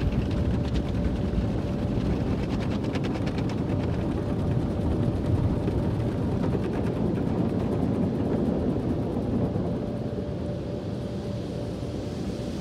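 Automatic car wash machinery working over the car, heard from inside the cabin: a steady low rumble and rush with a faint steady hum, easing a little near the end.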